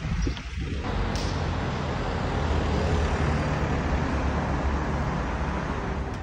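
Steady rumble and hiss of road traffic, with a constant low engine hum.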